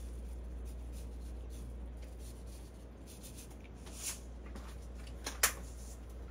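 Sesame seeds being sprinkled over a plated dish: faint scratchy ticks, then two sharp clicks about four and five and a half seconds in, over a steady low hum.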